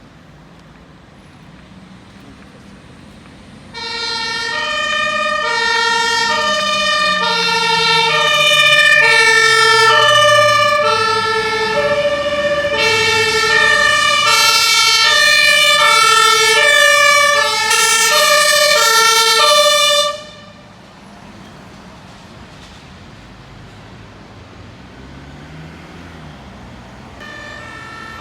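German two-tone emergency-vehicle siren (Martinshorn) alternating between a lower and a higher note, each held for about three-quarters of a second. It starts abruptly about four seconds in and cuts off suddenly at about twenty seconds, with engine and traffic noise underneath. Near the end a second two-tone siren starts up faintly.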